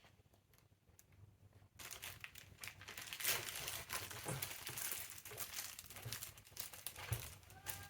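Packaging crinkling and rustling as it is handled, a dense crackle of small clicks that starts about two seconds in after a near-quiet start.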